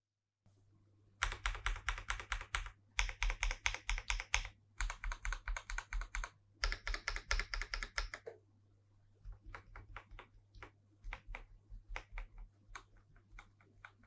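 Typing on a Feker Alice 80 ergonomic mechanical keyboard: quick runs of keystrokes, several presses a second, in bursts with short pauses, turning to quieter, sparser keystrokes about eight seconds in.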